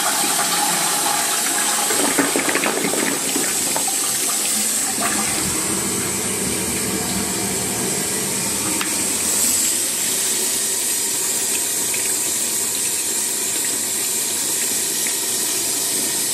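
Test flush of a toilet through a newly fitted Dudley Turbo 88 lever siphon. Water rushes down for the first few seconds, then the cistern refills with a steady rush of water through the fill valve.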